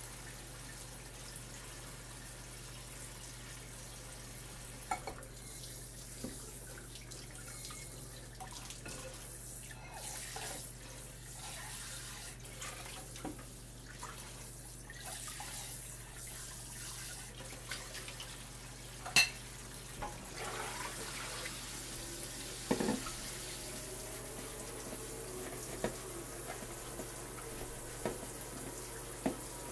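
Kitchen tap running steadily into a stainless steel sink as dishes are washed, with a few short, sharp clinks and knocks scattered through.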